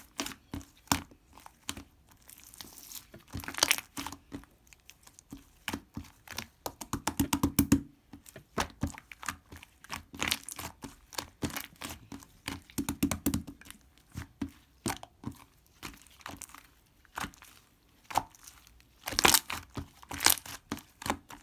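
Close-up crinkling and crackling of a small object being handled, in irregular sharp clicks. A quick run of clicks comes about seven seconds in, and louder crackles come near the end.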